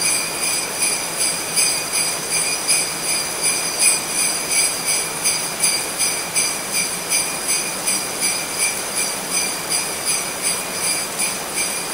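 Sleigh bells jingling in a steady rhythm, about two and a half shakes a second, over a constant hiss.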